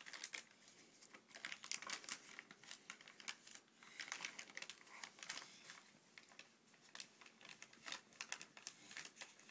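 Faint, irregular crinkling and rustling of plastic packaging handled by a toddler, a stream of small quick crackles.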